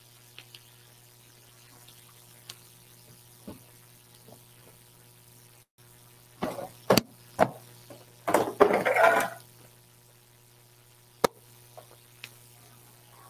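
Scattered knocks and clinks of cups and utensils being handled on a steel counter, with a louder noisy rush lasting about a second around eight seconds in, over a steady electrical hum.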